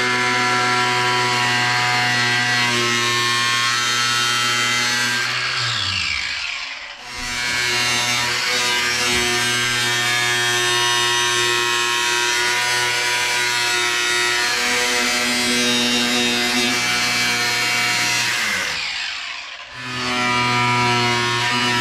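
Small cordless cut-off tool running at speed as its disc cuts into the aluminum sheet of an aircraft baggage floor. It winds down twice with a falling pitch, about six seconds in and again near the end, and spins back up each time.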